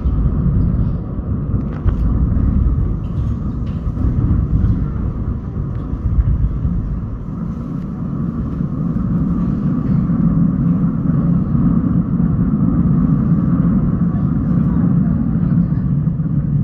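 Aerial fireworks bursting in a continuous barrage, heard as a steady low rumble with a few sharper cracks in the first few seconds.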